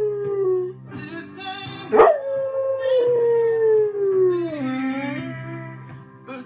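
Vizsla dog howling along to music. A held howl trails off in the first second. About two seconds in, a new long howl starts sharply and slides slowly down in pitch, ending a little after the five-second mark.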